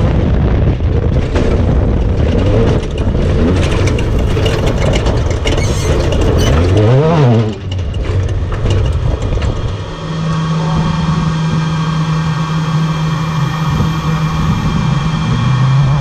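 Class 10 desert race car heard from inside the cab: the engine runs hard at speed with heavy rattle, its pitch swoops down and back up about seven seconds in as the car slows sharply, and from about ten seconds in it holds a steady low engine note at low speed.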